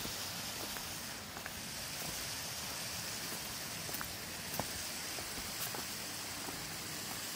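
A steady rushing hiss of outdoor noise, with a few faint light clicks scattered through it.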